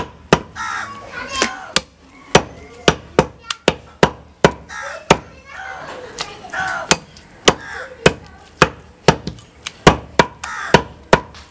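Large butcher's knife chopping goat meat on a wooden stump block: sharp chops about two a second, irregularly spaced.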